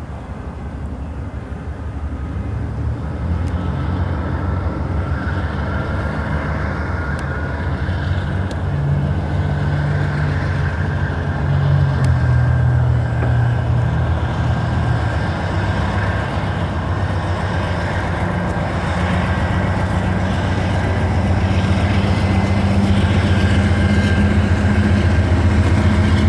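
Diesel-electric freight locomotives running under power as they approach and pass. The low engine drone grows steadily louder.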